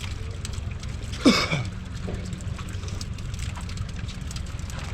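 Boat's motor running with a steady low hum as it moves toward shore. About a second in comes one short, sharp sound with a quickly falling pitch.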